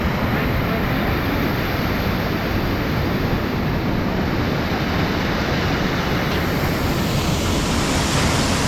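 Loud, steady rush of creek water pouring over a small waterfall.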